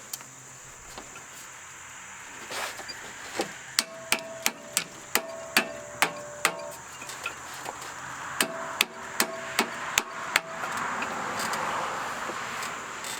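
Muffler on a Scag walk-behind mower's exhaust, struck in two runs of sharp metallic taps, about three a second, each with a short ring, as it is worked onto the exhaust pipe. A softer scraping rush follows near the end.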